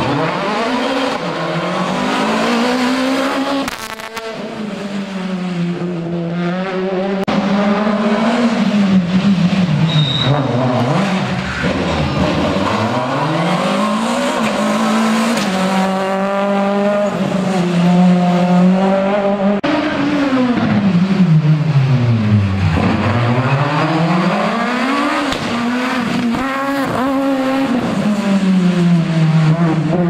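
Several rally cars, Citroën Super 1600 hatchbacks among them, pass one after another through tight bends. Their engines rev hard, the pitch climbing and dropping again and again as they brake, change gear and accelerate away, with some tyre squeal.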